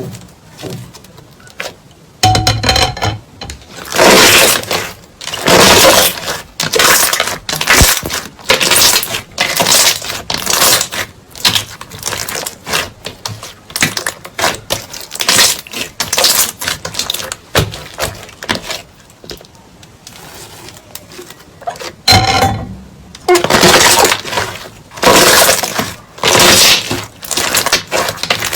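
Crunchy slime being squeezed and pressed, giving repeated bursts of crackling and popping about once or twice a second, with a quieter stretch a few seconds before the end.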